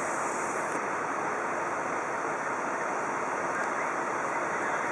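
Floodwater rushing steadily across a submerged road, a constant even rush of water with no breaks.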